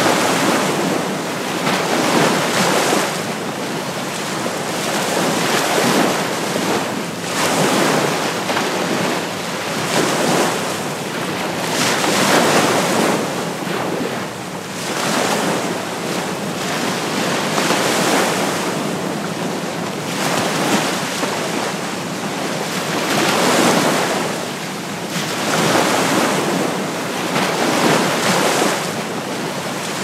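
Calm ocean waves breaking gently on the shore, a continuous wash of surf that swells and eases every few seconds.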